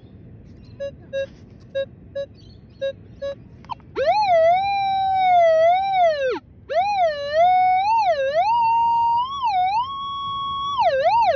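Minelab Equinox metal detector signalling a buried target: several short paired beeps at one pitch, then, after a click, a continuous tone that glides up and down in pitch and steps higher near the end as the coil is worked over the target in pinpoint mode.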